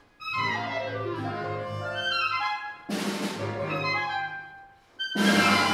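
Solo clarinet and a small mixed ensemble playing contemporary concert music in short phrases. Each phrase is broken by a brief pause and starts again with a sudden loud entry, about three seconds in and again near the end.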